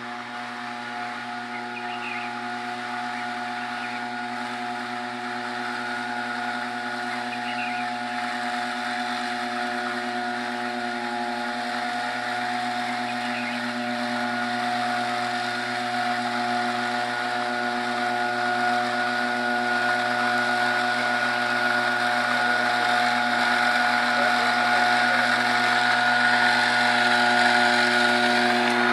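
Small engine of a motorised tea-plucking harvester running steadily at one speed, growing gradually louder.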